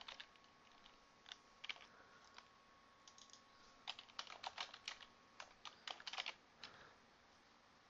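Faint typing on a computer keyboard, the key presses coming in short, irregular runs with pauses between.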